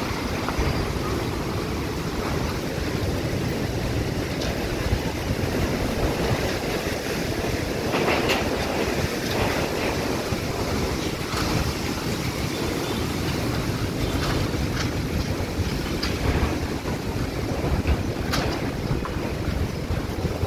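Dust storm wind blowing hard and buffeting the microphone in gusts, with a few brief clatters.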